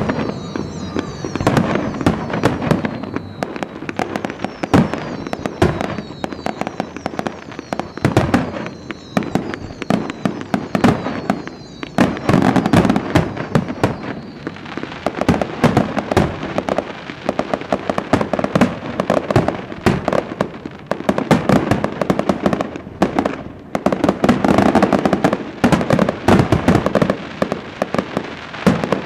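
Fireworks finale: a dense, continuous barrage of bangs and crackles from shells bursting in quick succession. Through roughly the first twelve seconds, high whistles falling in pitch repeat over the bangs.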